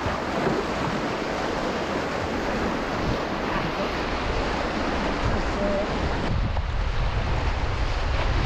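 Whitewater rapids of a river in spate rushing close by, with wind rumbling on the microphone, heavier in the last couple of seconds.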